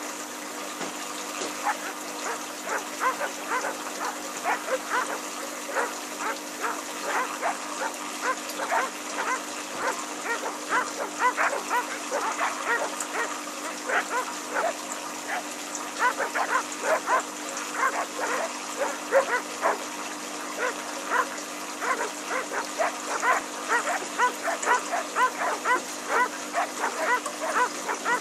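Aquarium air stone bubbling: a dense, irregular run of short bubbling blips over a steady low hum.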